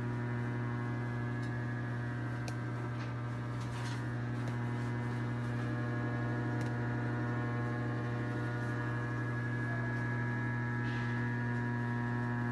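A steady low electrical mains hum with many overtones, unchanging throughout, with a few faint clicks here and there.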